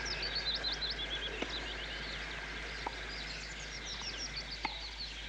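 Songbirds chirping and twittering, with the sharp pock of a tennis ball being struck in a rally, heard about four times at intervals of roughly a second or so.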